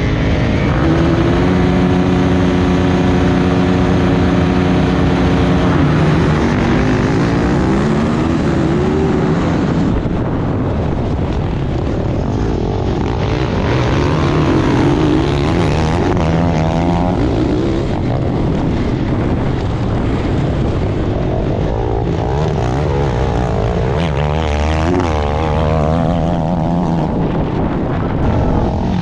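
Onboard a Stark Varg electric motocross bike at a race start: a steady multi-tone drone at the start gate rises in pitch about six seconds in as the field launches. The electric motor's whine then rises and falls over a dense rush of riding noise, with other bikes close by.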